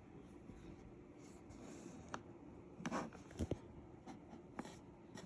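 A magnetic charging cable being handled and connected: a few small, separate clicks and taps over faint room tone.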